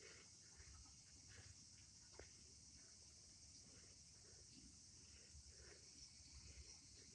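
Near silence, with a faint, steady, high insect chirring throughout.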